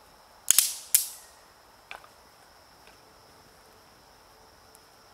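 Dry wood cracking sharply at a small campfire: three loud cracks in the first second and a smaller one about two seconds in. Insects make a steady high hum throughout.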